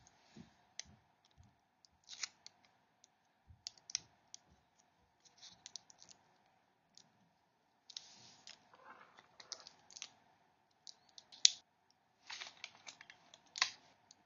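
Scattered small clicks, taps and rustles of hands handling a phone charger cable and sticky tape, with one sharper click about two thirds of the way through.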